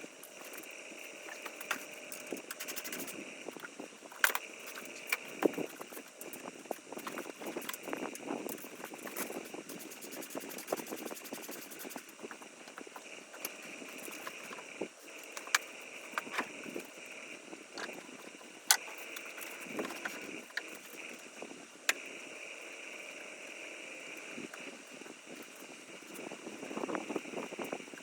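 Scattered sharp clicks and clinks, a few of them loud, over a steady background hiss.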